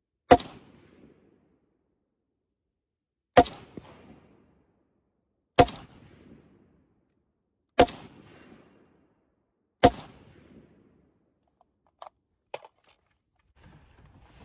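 PSL-54C semi-automatic rifle in 7.62x54R firing five single shots, about two to three seconds apart, each with a short echo. Two light clicks follow near the end.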